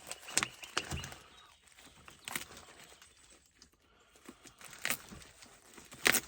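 Scattered light clicks, taps and rustling from packaging and saw chain being handled, with the sharpest click near the end.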